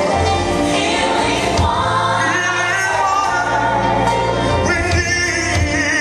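Gospel-style Christian worship song: a group of voices singing over a band with a strong, steady bass.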